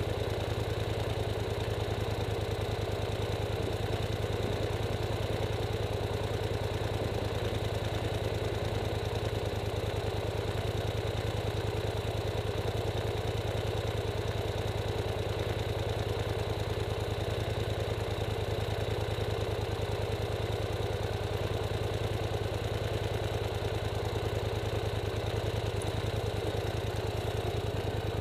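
Polaris Sportsman 850 XP ATV's parallel-twin engine idling steadily while the machine stands still, heard from a camera on its rack.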